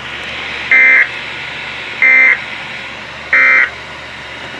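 Three short, buzzy electronic alert beeps, evenly spaced about 1.3 seconds apart, over a steady background hiss. They are the attention tones of an emergency alert broadcast, sounding just before a severe weather bulletin.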